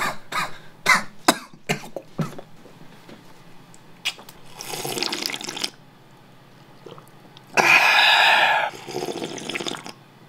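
A person slurping ramen broth straight from a bowl, in noisy drawn-in sips: one about four seconds in, a louder, longer one about eight seconds in, and a softer one right after it.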